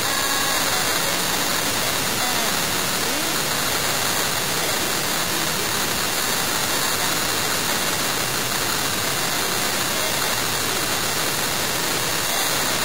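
A steady, even rushing noise that covers everything, with faint voices underneath.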